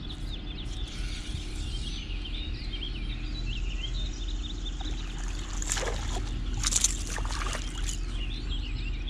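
Outdoor lakeside ambience: many small birds chirping and twittering over a steady low hum, with two short sharp knocks around six and seven seconds in.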